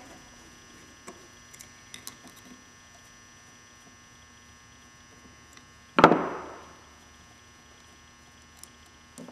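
A screwdriver backs screws out of a Marvel Schebler carburetor's cast body with faint scattered clicks. About six seconds in, one sharp metal clank rings briefly and fades as a tool or part meets the bench.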